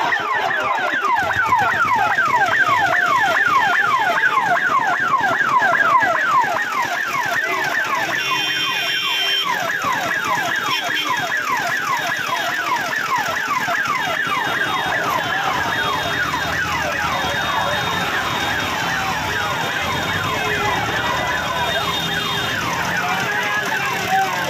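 Electronic police vehicle siren sounding a fast repeating falling yelp, several sweeps a second, with short steady horn-like tones breaking in over it now and then.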